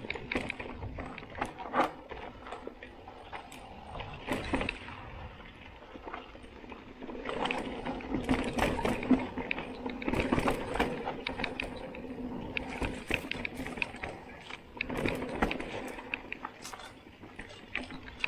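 Mountain bike rolling down a dirt forest trail: tyre noise over the ground, with the bike rattling and knocking over bumps and roots. It grows louder and busier from about seven seconds in.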